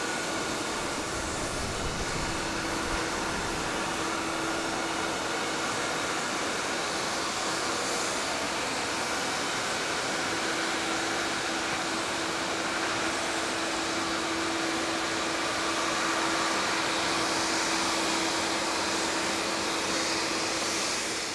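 Boeing 787 Dreamliner's jet engines running at low power during pushback: a steady whining rush with a faint hum under it, growing a little louder near the end.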